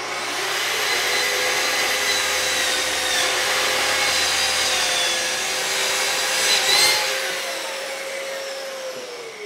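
Festool plunge-cut track saw crosscutting two stacked sheets of half-inch maple plywood along its guide rail. The motor whines steadily through the cut, then winds down with a falling pitch near the end.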